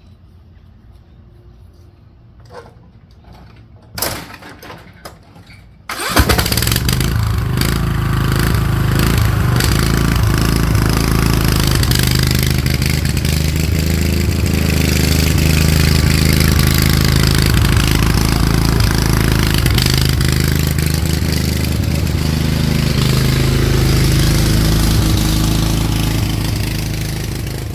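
A Briggs & Stratton engine on a Murray lawn tractor starts about six seconds in and then runs steadily. Before it starts there are a few light clicks and a knock.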